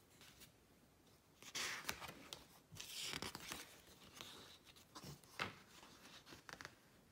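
A softcover picture book being opened and its pages smoothed flat by hand: faint paper rustling and swishing, with a few light crinkles and taps near the end.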